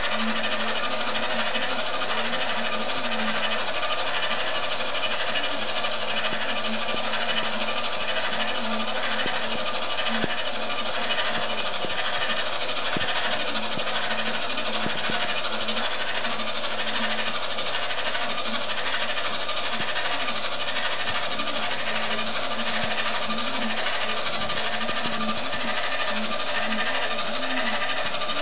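Small electric motors of a Bruder 1/14 trailer's motorised double loading ramps running steadily as the two ramps lower from upright to the ground.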